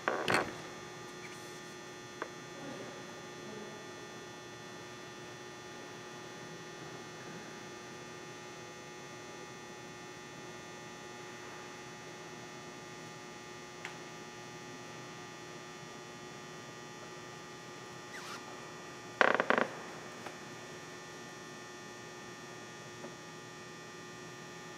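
A steady hum with several faint constant tones, broken by a short loud sound at the very start and another about nineteen seconds in.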